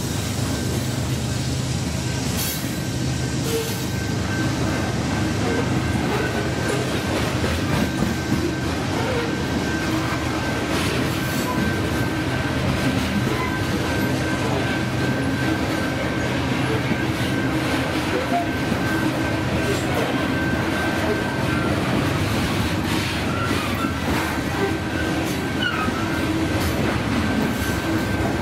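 Freight train of covered hopper cars rolling past close by: a steady, heavy rumble with wheels clicking over the rail joints. A thin, steady wheel squeal runs through much of it and fades out about three-quarters of the way through.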